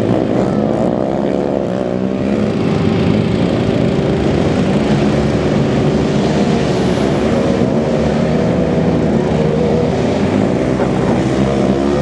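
Several racing ATV (quad) engines running hard together, their pitch rising and falling as they rev up and ease off.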